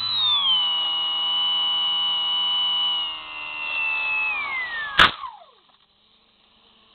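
Model plane's electric motor and propeller whining steadily, the pitch sliding down about four seconds in as the throttle comes off. About a second later a sharp, loud crash as the plane hits the grass, the motor winding down and stopping right after.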